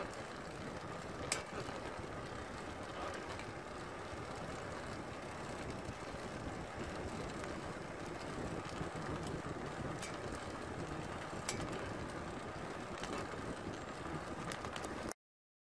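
Masi single-speed bicycle drivetrain running under pedalling: a steady whir of chain over chainring and rolling tyres, broken by a few sharp clicks, the loudest about a second in, an unexplained clicking that the rider is trying to track down. The sound cuts off suddenly near the end.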